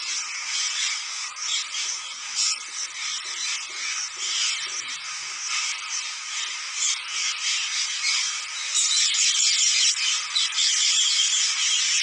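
A large flock of rose-ringed parakeets screeching and chattering all at once: a dense, high-pitched chorus of many overlapping calls, growing louder about nine seconds in.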